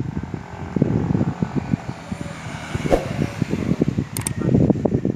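Low, uneven rumbling noise, like wind and handling on the microphone, with a sharp click about three seconds in and two more clicks near the end.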